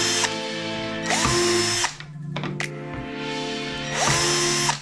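Ridgid cordless drill drilling into a black plastic tray in short bursts. It is running as the sound begins and stops almost at once, then runs twice more, about a second in and near the end, each time spinning up with a rising whine.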